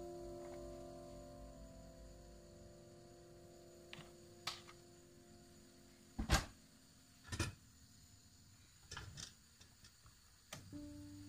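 Background music fades out. Then come a few faint, sharp clicks and knocks, the loudest about six seconds in, as oil is put into a frying pan on a gas stove. Music starts again near the end.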